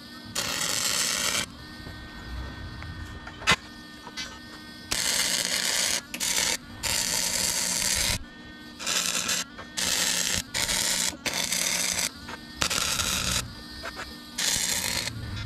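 Wire-feed welder arc crackling in repeated bursts of about half a second to a second and a half, stopping and starting as seams on steel tubing are welded, with a steady hum from the welder between bursts. A single sharp click about three and a half seconds in.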